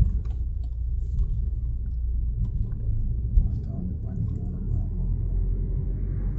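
Low, steady rumble of a car driving, heard from inside the cabin, with a few light clicks and a small knock about three and a half seconds in.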